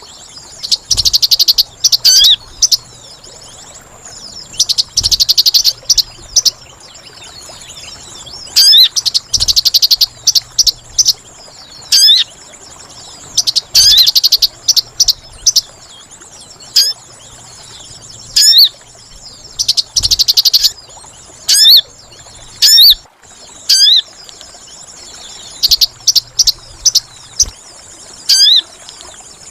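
Sogon bird-lure call: sharp rising whistled notes alternating with rapid chattering trills about a second long, repeated every couple of seconds. A steady high insect drone runs underneath.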